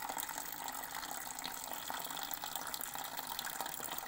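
A thin stream of water running steadily from a water cooler's tap into a bowl, the cooler being drained so that it draws smoke through cigarettes fitted in its lid.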